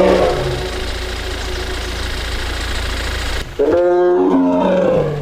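Amur tiger calling in drawn-out, crying moans: one call tails off about half a second in and a second starts about three and a half seconds in, falling in pitch at its end. A low steady hum underlies the first part and cuts off just before the second call.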